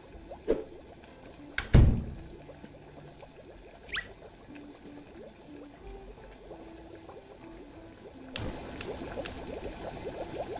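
Pot of water bubbling at a rolling boil, with a few sharp clicks and one heavy thump about two seconds in; the bubbling gets louder and denser near the end.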